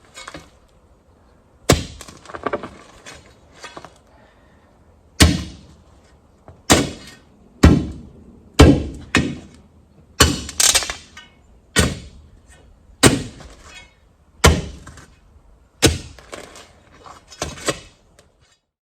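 A series of about a dozen sharp, hard knocks, irregularly spaced roughly a second apart, each with a short crackling tail.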